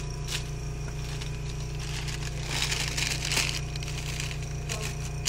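Crinkling and rustling of a sterile paper drape being unfolded and smoothed flat by gloved hands, loudest about two and a half to three and a half seconds in, over a steady low hum.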